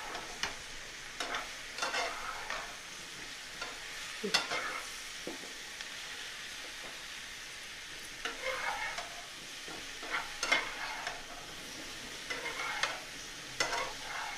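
Marinated button mushrooms sizzling in melted butter in a frying pan, with a spatula scraping the pan and turning them in short bouts every couple of seconds.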